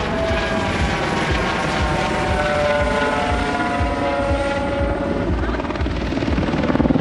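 Eurocopter EC120B Colibri helicopter in aerobatic flight, pulling up into a stall turn: the main rotor's steady beat under a turbine and Fenestron whine whose pitch slides as it manoeuvres, growing louder near the end.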